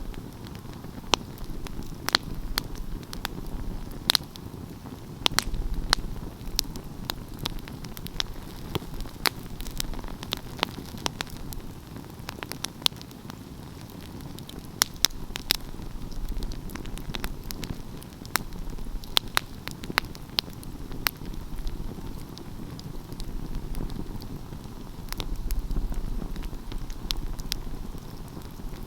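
Wood fire crackling, with irregular sharp pops and snaps, several a second at times, over a low steady rumble that swells a few times.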